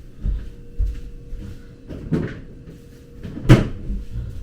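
Knocks and clatter of kitchen items being handled and put away, with a few soft knocks and one sharp, loud knock about three and a half seconds in.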